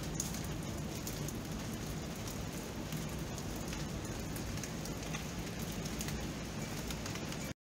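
Steady rain falling on surfaces, an even hiss with many individual drops ticking through it.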